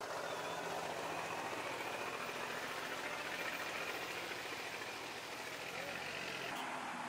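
A heavy dump truck's engine running steadily as the truck moves slowly off down the road. Near the end the engine sound breaks off abruptly and gives way to lighter road noise.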